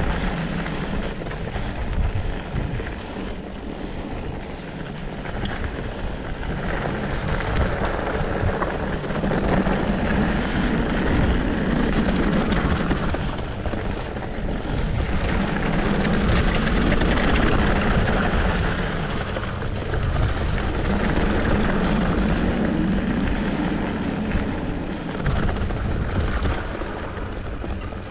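Wind buffeting the microphone and mountain-bike tyres rumbling over a dirt downhill trail, a rushing noise that swells and eases with speed, with a few sharp clicks from the bike.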